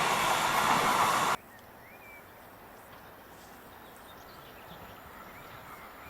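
EN71 electric multiple unit passing at close range, a loud rushing rumble of wheels on rail that cuts off abruptly about a second in. Then quiet outdoor ambience with a few faint chirps.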